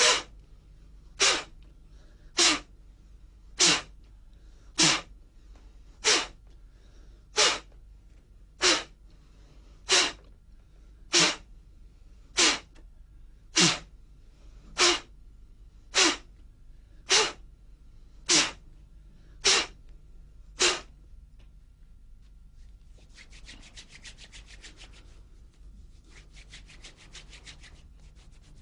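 About eighteen sharp slaps of an open palm against the body, evenly paced about one every 1.2 seconds, as in Emei slapping qigong. Near the end come two short bursts of quick rubbing of the hands.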